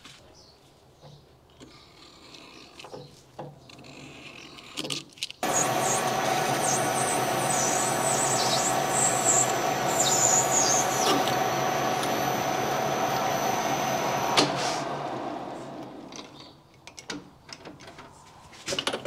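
A metal lathe starts up about five seconds in and runs steadily for about nine seconds, with short high squeals while it runs, then is switched off and spins down. Light handling clicks come before and after.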